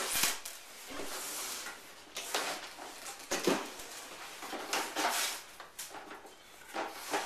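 Cardboard and plastic packaging rustling and scraping in irregular bursts as a new computer box is unpacked by hand.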